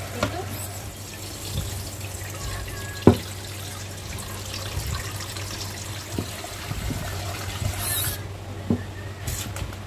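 Kitchen tap running through a spray aerator, first splashing into plastic tubs in the sink and then filling a wok. A single sharp knock comes about three seconds in, with a few fainter clicks later.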